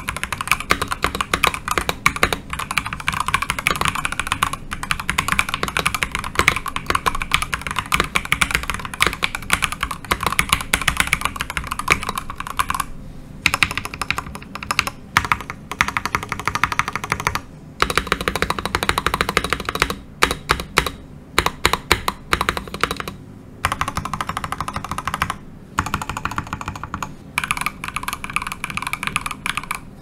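Typing on a stock, unmodded Nextime 75 mechanical keyboard with Gateron Oil King linear switches and PBT double-shot keycaps: quick runs of key clacks with a few short pauses, and sparser single key presses in the middle.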